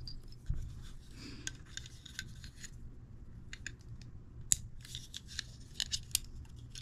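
Light clicks and taps of hard plastic Playmobil toy parts being handled and fitted together, with a few sharper clicks about halfway through and near the end.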